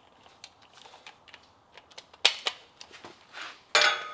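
Socket wrench on a long extension working the exhaust flange bolts under the truck: scattered sharp metal clicks and taps, a louder click about halfway through, and a ringing metallic clank near the end.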